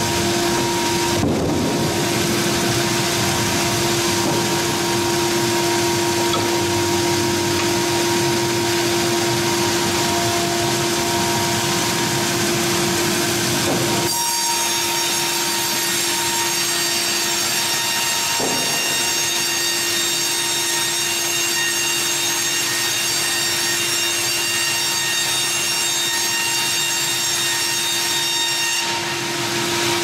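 Wravor WRC 1000 horizontal band sawmill running and sawing through a log, a steady loud whir with a hum under it. About halfway through, the hum drops away and a high whine sets in, and the hum comes back near the end.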